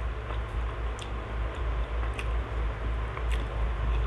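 A person chewing a mouthful of fried catfish and rice, with a handful of short, sharp mouth clicks spread through, over a low steady hum.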